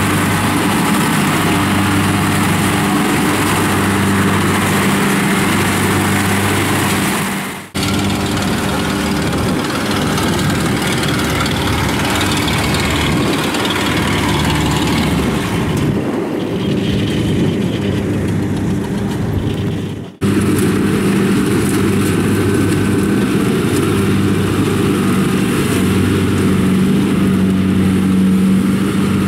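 Diesel engine of a Kubota DC-70 rice combine harvester running steadily under load while harvesting, and in the middle stretch a tracked rice-sack carrier running. The steady drone breaks off abruptly twice, about eight and twenty seconds in.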